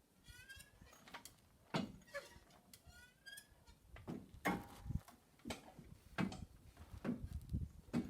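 A ratchet wrench clicking in two short fast runs, near the start and about three seconds in, while the radiator brackets are bolted up, with several sharp metal knocks and clunks of tools and parts through the rest.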